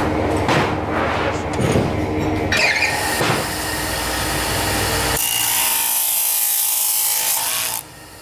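Bench-mounted abrasive cut-off saw grinding through a steel bar. Clatter comes first, then the spinning disc's harsh, high hiss as it bites into the metal, and the sound drops off suddenly near the end.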